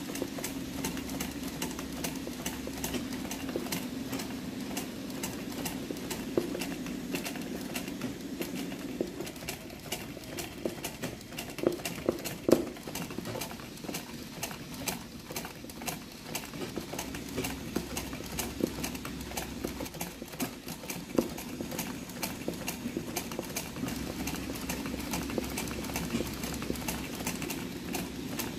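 Sewing machine stitching free-motion embroidery, the needle clattering in a fast, steady run of ticks over a steady hum, with a few louder knocks about twelve seconds in.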